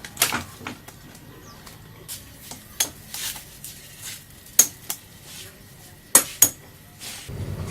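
Metal parts and tools clinking and knocking as they are handled, in short sharp clicks spaced irregularly. Near the end a steady low motor hum starts up.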